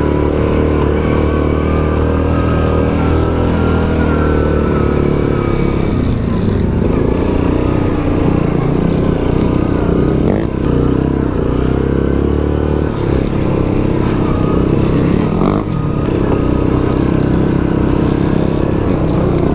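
Yamaha Grizzly 700 ATV's single-cylinder four-stroke engine running under load up a rough trail, its pitch rising and falling with the throttle. A couple of short knocks come as it rides over rocks.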